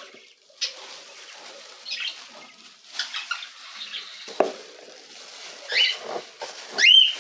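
Wood-shaving bedding in a cockatiel nest box rustling and scraping as it is scooped out with a metal scoop, in short scratchy bouts. There is a knock about four seconds in and a short rising squeak near the end, the loudest sound.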